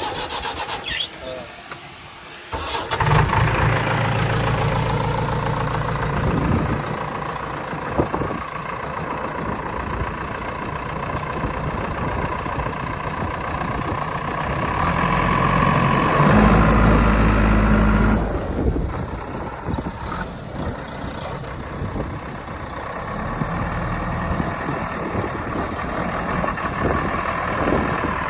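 Diesel engine of a JCB 3DX backhoe loader working. It comes in loudly about two and a half seconds in and runs on with the revs rising and falling under load. It is loudest for a couple of seconds about sixteen seconds in, then drops back suddenly.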